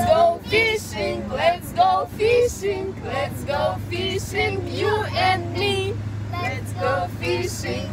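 Women and young children singing together inside a moving car, over the car's steady low hum.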